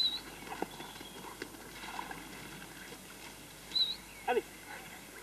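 Brief animal calls over faint outdoor background: two short high chirps and a quick rising call about four seconds in, with a few light knocks.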